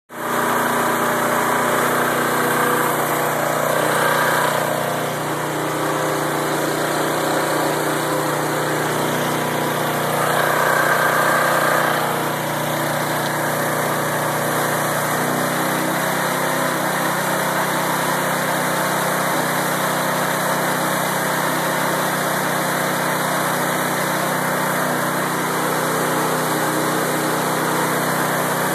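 Single-cylinder lawnmower engine running steadily while driving an alternator as a homemade generator. It gets briefly louder around four seconds in and again around ten to twelve seconds in.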